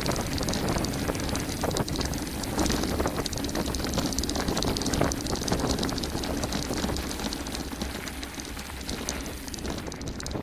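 Mountain bike descending a gravel forest road at speed: tyres crunching over stones and the bike rattling with many short clicks, over a steady low rumble of wind on the microphone.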